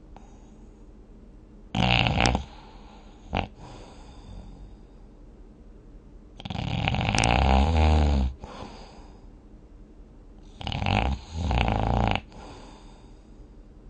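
A person snoring while dozing: a short snore about 2 seconds in, a brief catch a little later, one long loud snore from about 6.5 to 8.5 seconds, and a double snore near the end.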